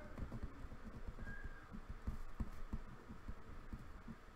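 Faint, irregular low knocks and light handling noise over a quiet room hiss, with one brief faint high tone about a second in.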